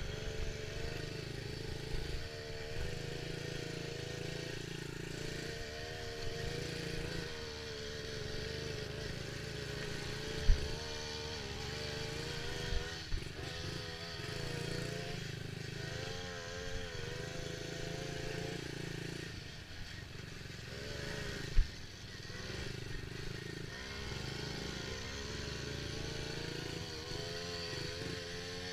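Dirt bike engine running while being ridden, its pitch rising and falling repeatedly with the throttle. A couple of sharp knocks stand out, about ten seconds in and again about twenty-one seconds in.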